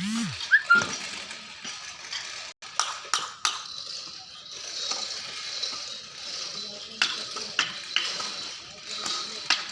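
Irregular sharp clicks and knocks, like hand tools at work on a floor, over a steady hiss, with a brief voice-like call in the first second.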